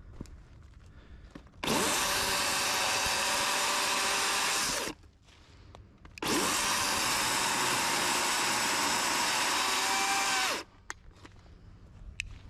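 DeWalt battery chainsaw cutting through fallen tree limbs in two runs of about three and four seconds, its motor spinning up at the start of each and winding down at the end, with a short pause between.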